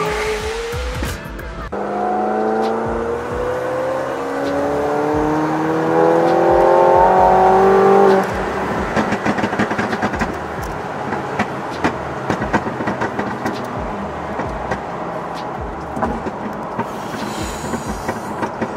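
McLaren 720S twin-turbo V8, tuned and fitted with an iPE exhaust, accelerating hard with its pitch climbing steadily for about six seconds. Then, off the throttle, a long run of pops and crackles from the exhaust on the overrun.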